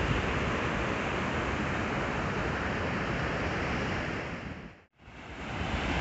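Water pouring over a concrete dam spillway weir into the basin below, a steady rushing that drops out briefly about five seconds in and then returns.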